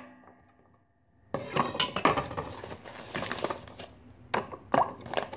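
A clear plastic bag crinkling and rustling in the hands as sticky rice cakes are pulled apart in it, with sharp clicks and taps. It starts after about a second of near silence.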